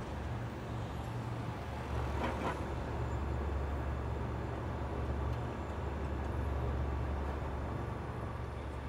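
Steady low rumble of city traffic at night, an even background hum with no single vehicle standing out, and a brief faint higher sound about two seconds in.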